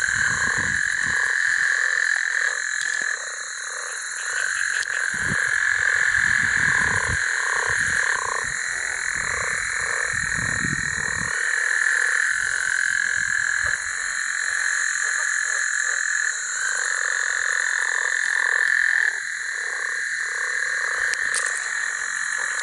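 Dense chorus of many frogs calling, a steady trilling layer with quick repeated croaks over it.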